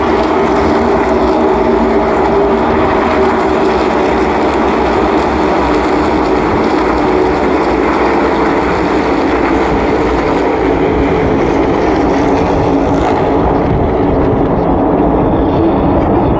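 A field of NASCAR Cup Series stock cars running at speed around the oval, their V8 engines making a loud, steady drone of many engines at once.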